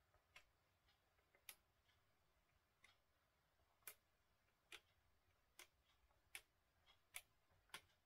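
Faint plastic clicks of a pink 37-key toy electronic keyboard's panel buttons being pressed, about nine irregular clicks roughly a second apart, with no notes or tones sounding.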